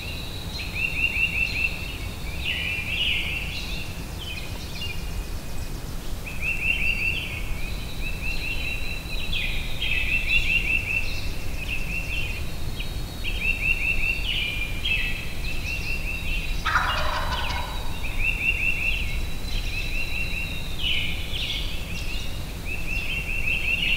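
Songbirds singing throughout in short, repeated high trills and whistles, with a wild turkey gobbling once, lower and rattling, for about a second past the two-thirds mark.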